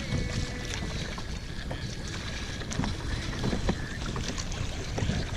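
Wind buffeting the microphone on the open water, with water splashing and light knocks around a kayak being paddled.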